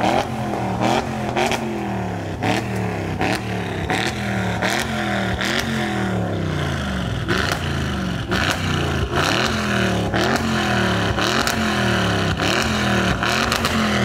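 A Mazda MX-5 Mk1's four-cylinder engine is blipped over and over in quick revs, about one and a half a second, each rising and falling back, with sharp pops from the exhaust in among them: the car is popping flames on the overrun.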